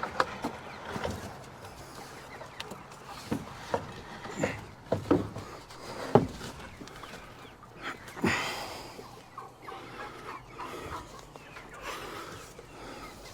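Chickens clucking in short, scattered calls, the loudest about six seconds in.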